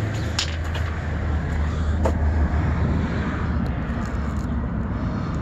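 Road traffic going by on a street, a steady low rumble that eases after about two and a half seconds, with two short clicks in the first half.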